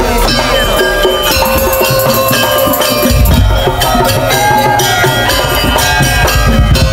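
Madurese daul (tong-tong) music played live by a percussion troupe: loud drums and deep bass drums under a melody that bends and wavers in pitch.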